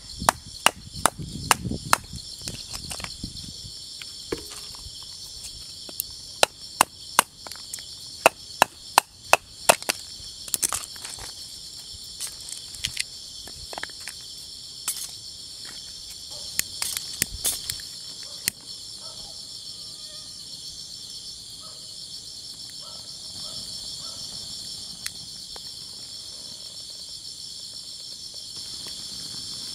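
Firewood being chopped and split: sharp woody strikes in irregular runs, some quick and close together, stopping about eighteen seconds in. A steady high-pitched chorus of insects, crickets among them, runs underneath.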